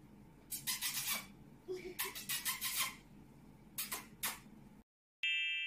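Three bursts of raspy, scratchy noise, then a bright chime strikes near the end and rings on.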